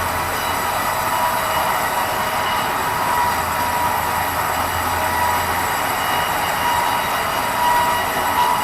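Sawmill band saw running steadily through red meranti timber, a constant high whine over a noisy rush; a low hum underneath drops out a little over halfway through.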